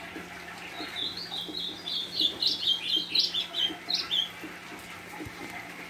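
A golinha (white-throated seedeater) sings one fast, varied phrase of high chirping notes, lasting about three seconds, over a steady hiss of rain.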